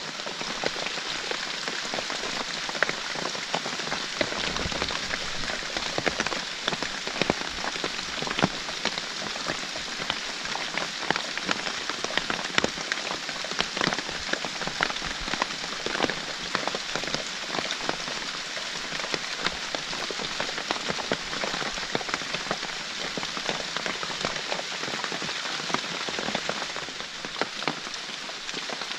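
Heavy rain pouring steadily, with many sharp individual drops striking close by.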